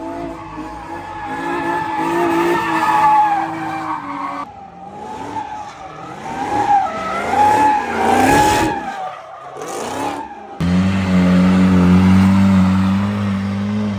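A car engine revving up and down hard, with tires squealing and skidding. About two-thirds of the way in it settles into a loud, steady high-rev note.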